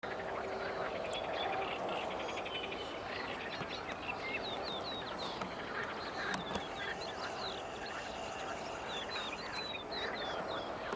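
Frogs calling at a lake, a dense continuous chorus with a fast rattling trill early on, while birds add many short, high chirps throughout.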